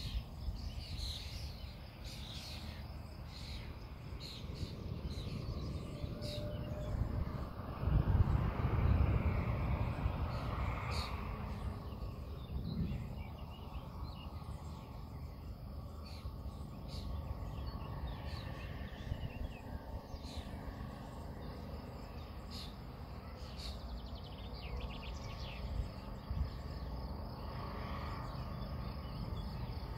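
Outdoor storm ambience: steady low rumble of wind on the microphone with scattered short high chirps. About eight seconds in, a louder low rumble swells and dies away over a few seconds.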